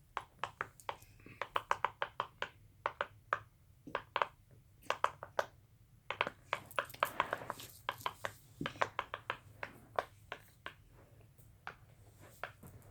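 Silicone pop-it fidget toy being popped with the fingers: many quick, sharp pops in irregular runs with short pauses, tapped out like a tune.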